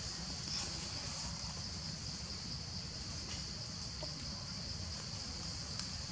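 Insects buzzing in a steady, high-pitched chorus, over a low rumble.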